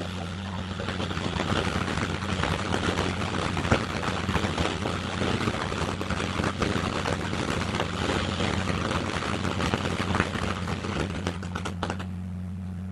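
Ground fountain firework spraying sparks with a dense, steady crackling hiss, which dies away near the end as the fountain burns out. A steady low hum runs underneath.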